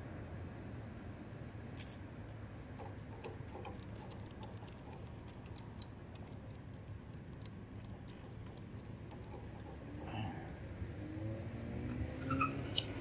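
Faint, steady road-traffic rumble with scattered light clicks. Near the end a vehicle accelerates through the intersection, its engine rising in pitch.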